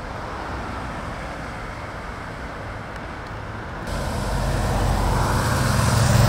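Steady road and traffic noise from the race escort vehicles. About four seconds in it gives way to an escort motorcycle's engine running steadily and growing louder as it approaches.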